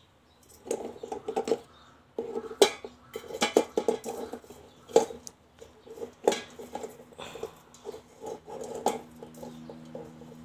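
Raw eggs being arranged by hand in a stainless steel pot: eggshells clicking and knocking against each other and against the pot's metal side in irregular clusters, starting about a second in.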